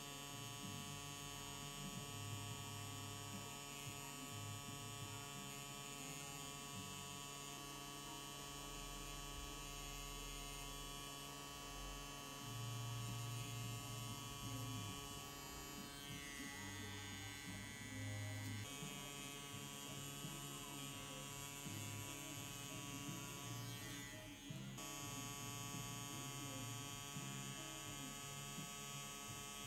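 FK Irons Xion rotary pen tattoo machine running steadily while lining skin: a constant electric hum made of several steady tones. Its tone shifts slightly a little past halfway and again near the end.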